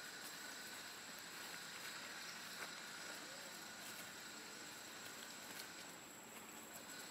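Faint steady outdoor background hiss with a thin high whine, and a few faint ticks.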